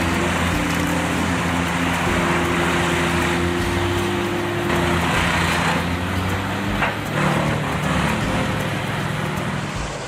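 Morbark 4036 wood chipper running under load, its diesel engine holding a steady drone under the dense noise of birch branches being chipped, with a few sharper cracks about two-thirds of the way through.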